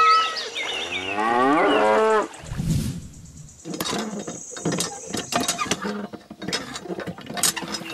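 A cow mooing: one long call of about two seconds. Then, from about three and a half seconds in, a run of quick, irregular light clicks and taps as the handle of a small model hand pump is worked up and down.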